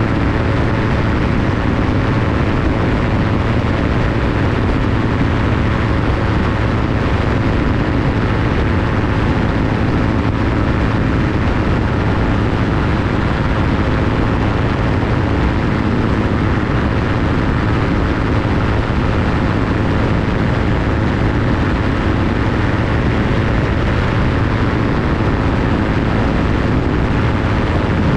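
Aerolite 103 ultralight's engine and pusher propeller running steadily in level flight, with wind rushing over the microphone.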